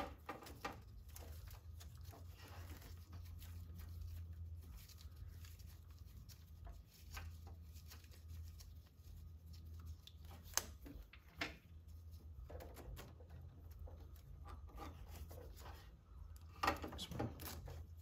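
Faint clicks and rattles of a nut and battery cable ring terminals being worked off a threaded stud by hand, with a few sharper metal clicks near the end, over a steady low hum.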